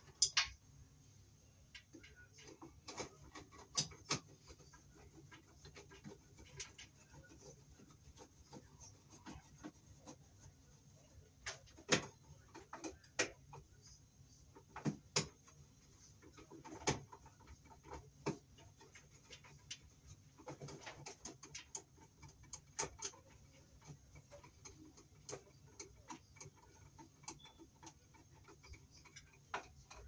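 Irregular light clicks and ticks of a hand screwdriver turning the mounting screws of a plastic lampholder fixture into a ceiling electrical box, with a few sharper knocks.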